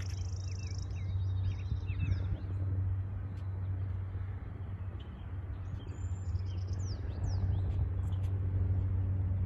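Small birds chirping in short rising and falling notes, in clusters near the start and again about two-thirds of the way through, over a steady low rumble that is the loudest sound throughout.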